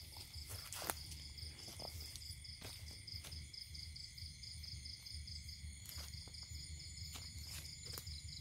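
Insect chorus chirring steadily at several high pitches, one of them pulsing rapidly, with scattered soft clicks.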